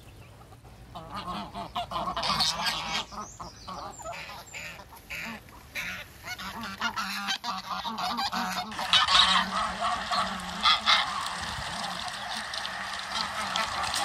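A flock of domestic geese honking, many short calls overlapping as the birds crowd around to be fed. The calling starts about a second in and grows louder and denser past the middle.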